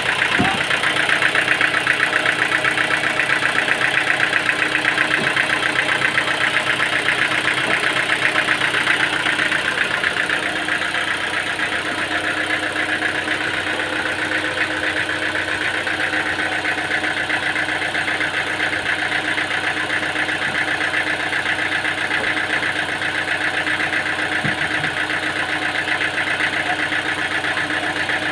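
Sawmill machinery running steadily: an engine or motor hum under a dense high whir, somewhat louder for the first ten seconds or so.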